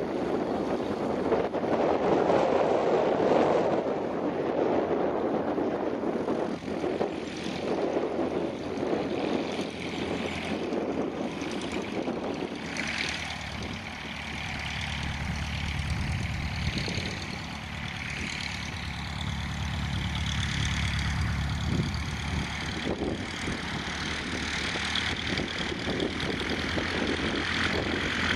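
Reims Cessna 150 light aircraft's piston engine and propeller running at low taxi power as it taxis on grass, a steady low drone. A broad rushing noise, like wind on the microphone, covers it through roughly the first half.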